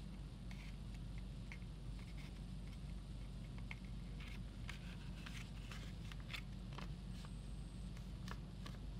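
Origami paper rustling and crackling in the hands as it is folded, a scatter of short crisp crinkles that come thickest from about halfway through, over a steady low hum.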